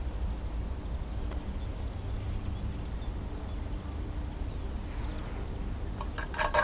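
Digging in field soil for a metal-detector target, over a steady low rumble. A short burst of scraping and clicking comes near the end.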